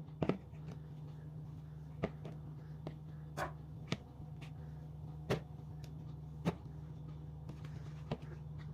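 About seven short, sharp knocks and clicks of objects being handled and set down, spaced a second or so apart, over a steady low hum.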